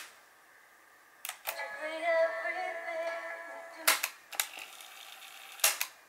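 Panasonic RQ-8100 cassette recorder's piano-key buttons clicking as they are pressed: the first click cuts the song off, a pair of clicks about a second later starts it again through the small built-in speaker, and further clicks follow near the middle and near the end.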